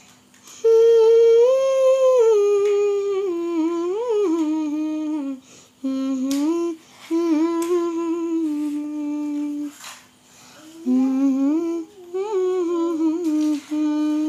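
A young girl humming a melody with her mouth closed, in three phrases with short pauses between them.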